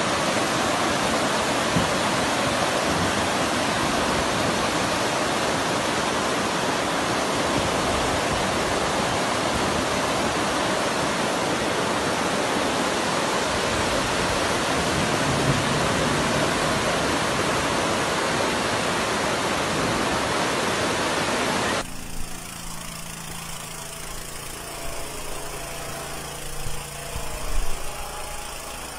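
Muddy floodwater from an overflowing creek rushing in a loud, steady roar. About 22 seconds in it cuts off abruptly to a much quieter low steady hum with a few knocks near the end.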